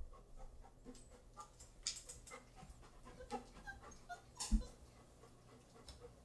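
Old English Sheepdog puppies giving faint, short whimpers and squeaks, with dog panting. A couple of sharp knocks stand out, the loudest about four and a half seconds in.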